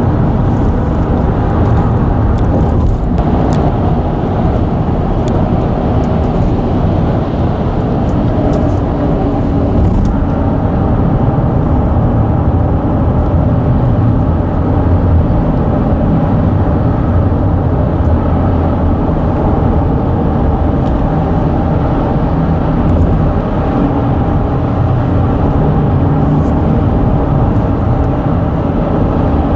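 Steady, loud, low rumble of vehicle tyres running over a road bridge deck, with the bridge droning under the traffic.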